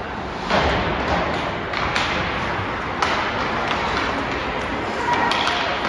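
Ice hockey play: skates scraping across the ice, with several sharp clacks and knocks of sticks on the puck and the puck against the boards.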